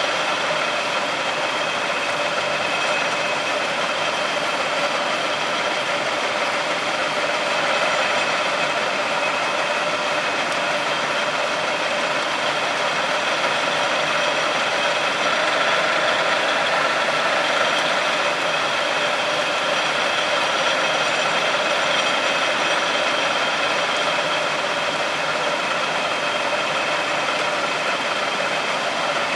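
A 5-spindle Davenport automatic screw machine running, cutting 1/2-20 alloy steel socket set screws under a flood of cutting oil. It makes a steady machine noise with several high, steady whining tones over it.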